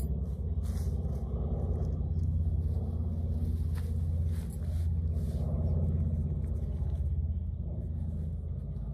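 A steady low engine-like rumble throughout, with scattered light rustles and clicks of tent fabric and stakes being handled.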